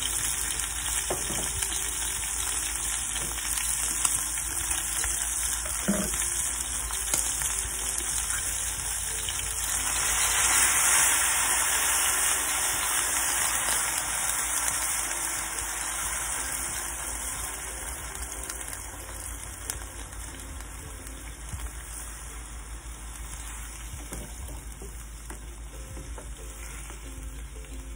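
Beef pieces searing in a hot pan with a steady sizzle, a wooden spoon knocking on the pan a few times. About ten seconds in, boiling water is poured in and the sizzle swells to a loud hiss, then settles to a quieter hiss as the broth heats.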